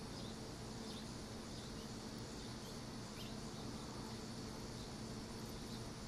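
Steady background hiss with a low hum, and a few faint light clicks from a small metal keychain switchblade pen being handled.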